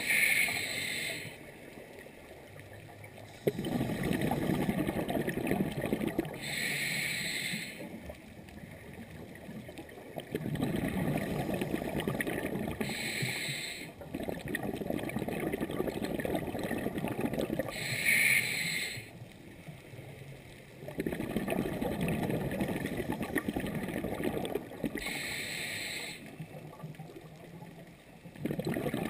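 Scuba diver breathing through a regulator underwater. Each breath starts with a short hiss as the diver inhales, followed by a long gurgle of exhaled bubbles. There are five breaths, about six seconds apart.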